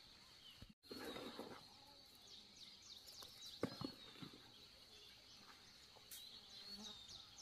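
Faint forest ambience: a steady high-pitched insect drone with repeated short high chirps, and a single sharp knock a few seconds in.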